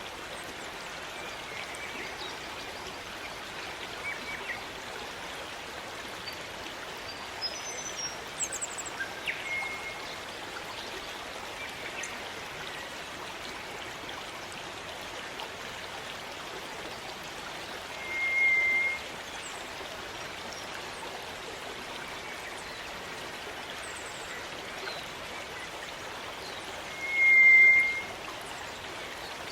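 Steady rushing of a rainforest stream, with birds calling over it: a few short high chirps about a quarter of the way in, then two clear, steady whistles, one just past halfway and a louder one near the end.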